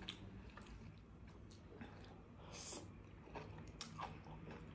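Faint mouth sounds of a person eating spicy instant noodles: chewing and slurping with small wet clicks, and one short hiss a little past halfway.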